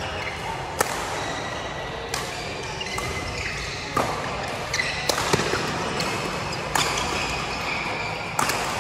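Badminton rackets striking a shuttlecock in a rally: about seven sharp hits, spaced one to two seconds apart, over a steady background hubbub.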